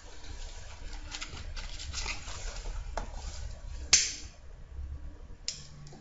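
Low room hum with a few faint scattered clicks and one sharp, loud click or knock about four seconds in.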